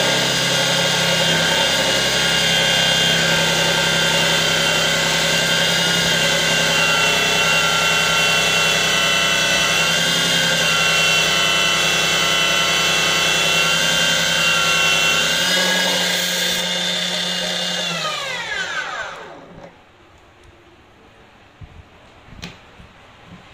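Slow-speed, water-cooled stainless-steel cutoff saw with a fine cutting disc running under load through stainless steel, a steady high whine. About eighteen seconds in it is switched off and the whine falls in pitch as the disc spins down. A few light clicks follow near the end.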